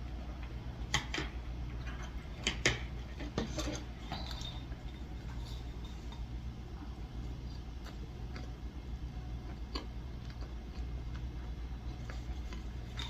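Chopsticks clicking against dishes and takeout containers while eating: several sharp clicks in the first four seconds, then a couple more later, over a steady low hum.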